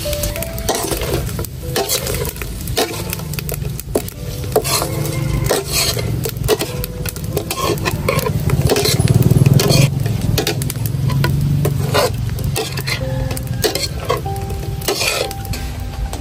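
Shrimp stir-frying in hot oil in a pan: sizzling, with a utensil scraping and knocking against the pan over and over. A low rumble swells about halfway through.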